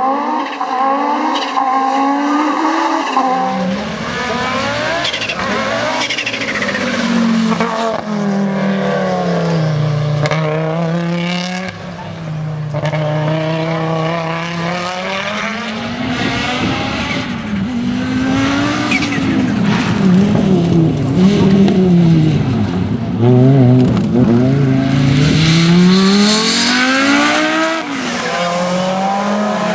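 Audi Quattro S1 E2 rally car's turbocharged five-cylinder engine driven hard. Its revs rise and fall over and over through gear changes and lifts, loudest about three-quarters of the way through.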